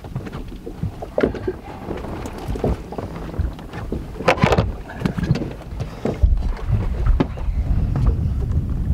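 A wooden bump board is dipped into lake water over the side of a boat and laid down on the deck: splashing and scattered knocks of wood against the boat, the loudest about four seconds in. Wind rumbles on the microphone in the second half.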